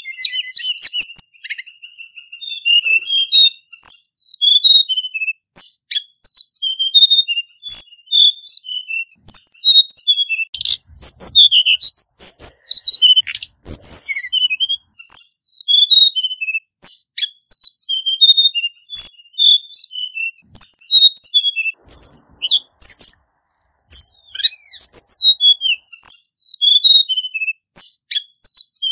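Male Hill Blue Flycatcher (Cyornis whitei) singing: repeated phrases of quick, high, warbled notes, each a second or two long, with short pauses between.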